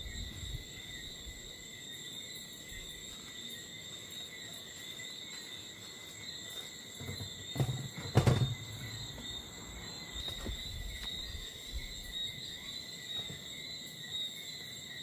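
Steady high-pitched chorus of night insects, crickets, trilling without a break. About eight seconds in there is a brief low thump with a sharp knock.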